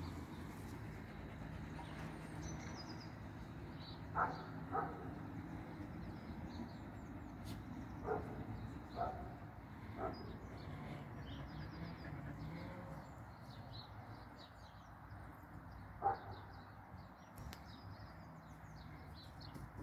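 Small birds chirping faintly over a steady low outdoor rumble, with a few short, sharp dog barks.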